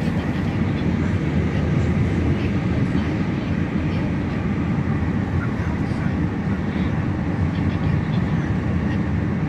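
Steady rumble and road noise inside a moving car's cabin, with a double-stack container freight train running alongside.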